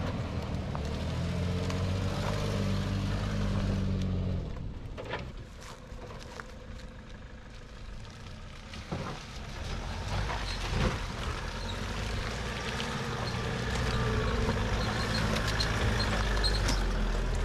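Four-wheel-drive engines running at low revs as the vehicles crawl over a muddy bush track, with a few sharp knocks and clunks in the middle. The engine sound grows near the end as one vehicle passes close.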